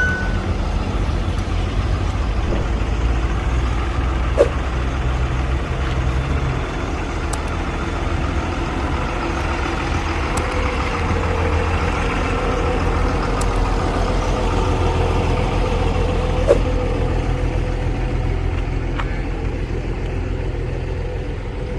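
Heavy construction-machine diesel engine running steadily, with a couple of short sharp knocks about four seconds in and again near three-quarters of the way through.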